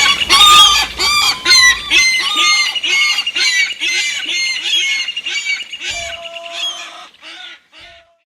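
Seagulls calling in a chorus of short squawks, a couple a second, fading away and stopping shortly before the end.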